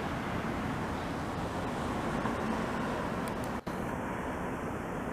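Steady outdoor road-traffic noise, a continuous rumble with no distinct pitch, breaking off for an instant about three and a half seconds in.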